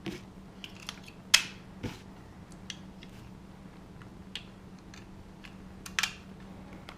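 AA batteries being pressed into a digital deadbolt's plastic battery holder: a few sharp clicks and snaps with small ticks of handling between them, the loudest about a second in and another near the end.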